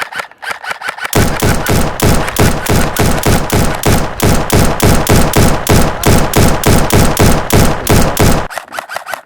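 Rapid airsoft gunfire, loud and close: an even string of shots at about five a second. The shots are lighter for the first second, heavier for most of the stretch, and lighter again just before the end.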